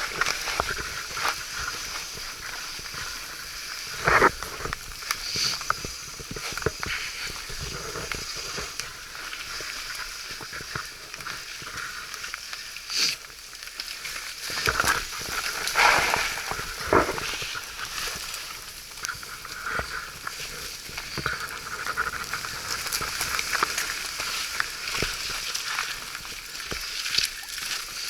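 Mountain bike riding over a wet, muddy trail: a steady hiss of tyres through mud and water, with frequent knocks and rattles from the bike going over rough ground.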